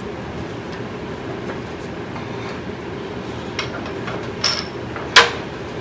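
Sheet-metal panel being taken out of a bead roller: a couple of light metallic clinks, then one sharp clank about five seconds in, over a steady low hum.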